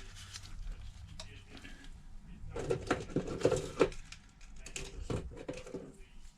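Handling noise on a workbench: a quick run of small clicks and taps about two and a half to four seconds in, with a few more about five seconds in.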